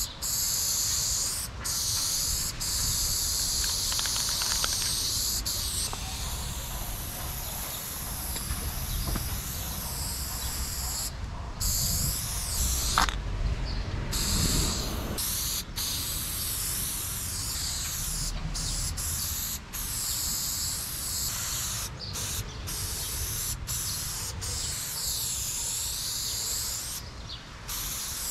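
Aerosol spray paint can hissing in long spells as lines are sprayed onto a wall, broken by several short pauses each time the nozzle is let go.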